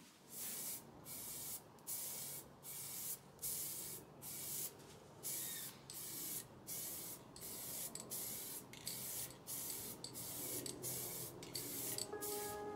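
Aerosol spray can hissing in short repeated bursts, about one and a half a second, with brief gaps between them.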